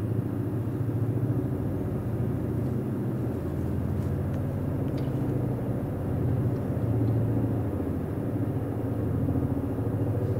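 Military helicopter flying low overhead: a steady, loud low rumble of rotors and engine.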